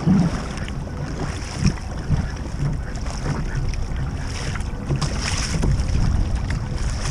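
Wind buffeting the microphone on a kayak at sea, with water lapping and slapping against the hull in small irregular knocks.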